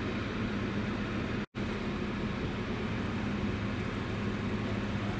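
Steady low drone with a hum and hiss from a passing coastal container ship's diesel engine. The sound drops out for an instant about a second and a half in.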